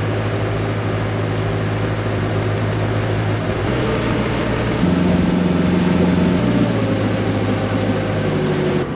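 Motor boat's engine running steadily under way, a low hum with wind and water rush around it. The engine note steps up about five seconds in and drops back about a second and a half later.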